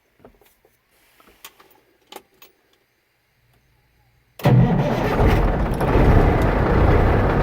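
A few faint clicks and rattles, then about four seconds in a semi truck's Cummins diesel engine starts, catching at once, and runs loudly and steadily.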